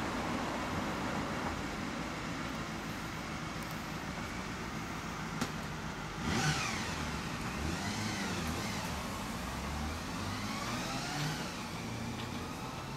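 A motor vehicle engine over a steady background hum, its pitch rising and falling several times from about halfway in.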